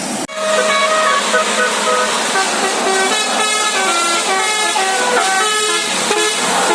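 Bus telolet musical air horn playing a fast melody of short notes that step up and down in pitch, starting abruptly just after a brief dropout a moment in.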